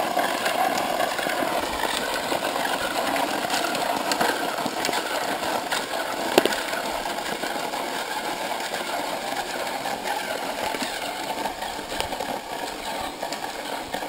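Battery-powered RC truck's electric motor and gear drivetrain whirring steadily as the truck spins donuts, with tyre and chassis rattle and one sharp knock about six seconds in.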